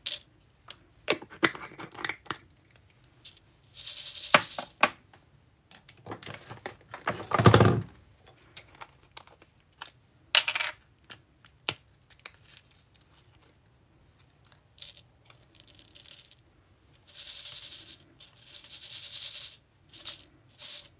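Metal spoon clinking against a small glass jar as it scoops snowflake confetti and glitter, which ticks and patters as it is sprinkled into a paper shaker well. There are scattered clicks throughout, a couple of brief rustling stretches, and one louder knock about seven and a half seconds in.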